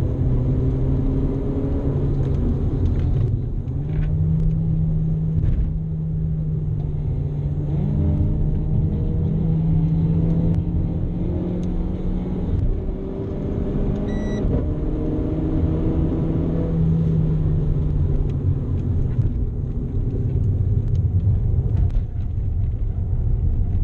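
Renault Clio RS's turbocharged four-cylinder engine running hard on a race track, its revs climbing, holding and dropping several times with gear changes and lifts for corners, over steady wind and road noise.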